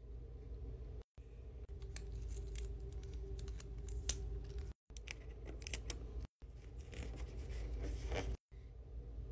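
Close-up paper-crafting sounds: a run of sharp snips and clicks of scissors cutting paper, then crackly sticky tape being handled and folded about seven seconds in. Short clips are broken by abrupt silent cuts, over a steady low hum.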